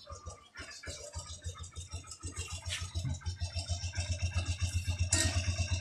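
Small Honda motorcycle engine idling with a steady low chug of about ten beats a second, growing louder towards the end, with some rustling and handling noise over it.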